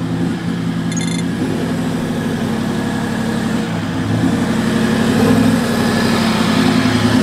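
Toyota LandCruiser's diesel engine running at low revs as it crawls over a rough off-road track towing a camper trailer. The engine note shifts a few times with throttle and grows a little louder as the vehicle comes closer.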